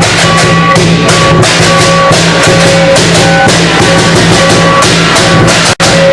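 Loud drum-heavy music with crashing cymbals over a melody of short held notes. It cuts out for an instant near the end.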